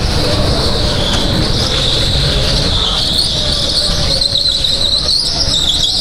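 Electric go-kart driven at speed through corners: a high squeal that wavers up and down in pitch, over a steadier lower hum and a continuous road rumble.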